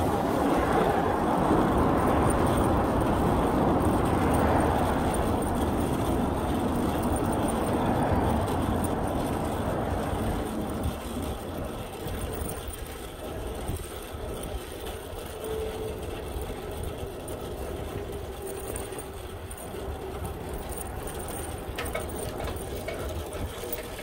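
Rushing noise of a passing vehicle, loudest at first and fading away over about ten seconds, leaving a quieter steady background of street noise.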